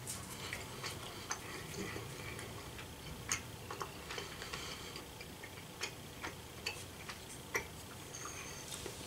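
Faint, irregular wet clicks and smacks of a mouth chewing a soft gummy candy.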